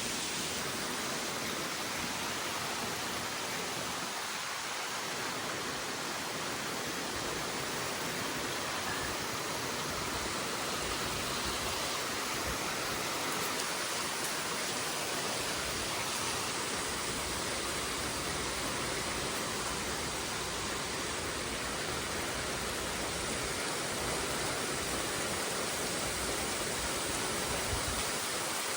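Heavy rain falling in a downpour, a steady, even hiss.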